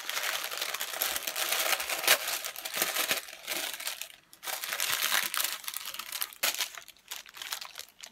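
Black tissue paper crinkling and rustling as it is folded back and pulled out of a cardboard gift box, in irregular bursts with short pauses, dying down near the end.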